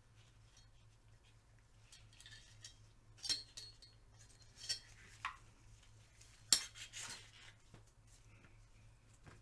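Scattered light metallic clinks and knocks of Tec-9 pistol parts being handled while a bore-cleaning rope is pulled through the barrel. The sharpest knock comes about six and a half seconds in.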